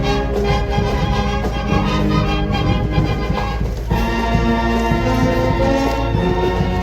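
Music with long held notes, moving to a new set of notes about four seconds in.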